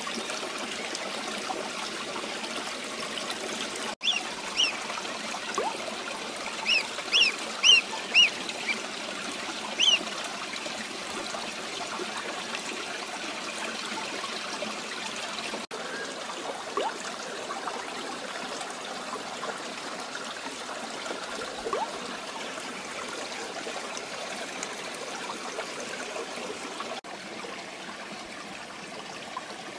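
Water trickling steadily, like a small stream, with duckling peeps: a run of short, high, rising chirps between about 4 and 10 seconds in.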